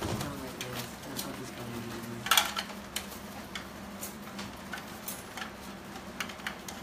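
Irregular light clicks and clatter, with a louder crackling rustle about two and a half seconds in.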